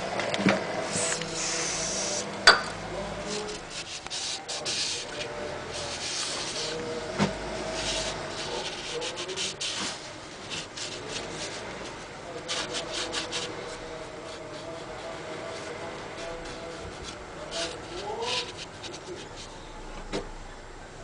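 Hand-worked scraping and rubbing on the metal of a Mercedes Vito subframe's empty bushing bore as it is prepared for new bushings, with a sharp knock about two and a half seconds in and another about seven seconds in.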